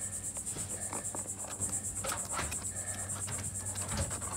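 Crickets chirping: a continuous high-pitched trill pulsing several times a second, over a steady low hum.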